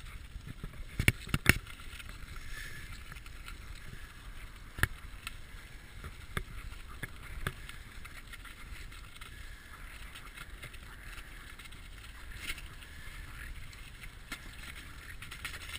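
A dog-drawn sled sliding over packed snow: a steady hiss and scrape of the runners, with a few sharp knocks and bumps, most of them in the first half.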